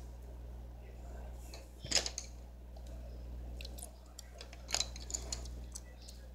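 Coloured pencils clicking against one another as one is picked out of a loose pile: one sharp clink about two seconds in and a quick cluster of clicks near five seconds, over a steady low hum.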